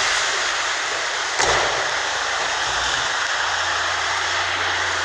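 Hail and heavy rain pelting down in a dense, steady hiss. There is a sharp knock about a second and a half in, and a low steady hum starts after about three and a half seconds.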